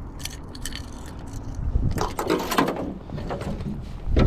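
Handling noise of a crankbait's treble hooks being worked out of a northern pike's mouth: a few sharp clicks, then a denser rattle and rustle about halfway, and a louder knock near the end. A steady low rumble of wind and water against the aluminum boat runs underneath.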